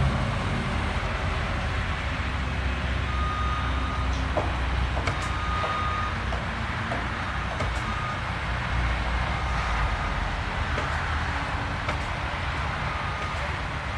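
Diesel construction machinery running with a steady low rumble while a reversing alarm beeps on and off at one pitch, with a few sharp knocks about four to five seconds in.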